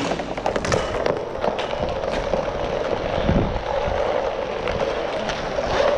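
Inline hockey play: skate wheels rolling on plastic tile flooring, with many quick clacks of sticks and puck.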